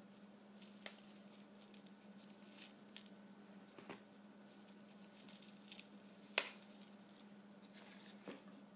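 Faint, scattered rustles and light clicks of hands handling a felt-trimmed paper shaker wand, with one sharper click about six seconds in. A faint steady low hum runs underneath.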